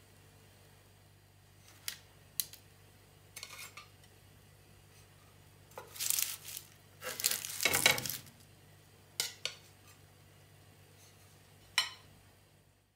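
Metal spatula clicking and scraping against a griddle pan lined with baking paper as grilled burgers are lifted out: a few sharp clicks, the loudest scraping about six to eight seconds in, and more clinks near the end.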